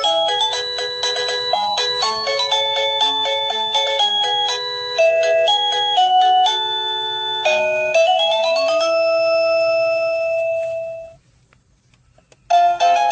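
Sadotech Model C wireless doorbell receiver playing an electronic chime tune: a run of short, clear notes that ends on one long held tone, fading out about eleven seconds in. After a pause of about a second, the next tune starts near the end.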